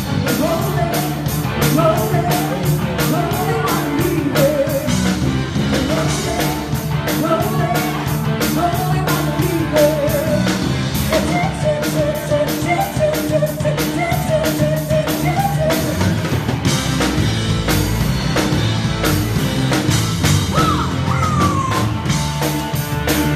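Live rock band playing: a female lead singer over drum kit and band accompaniment with a steady beat. The sung line stops about two-thirds of the way through and the band plays on instrumentally.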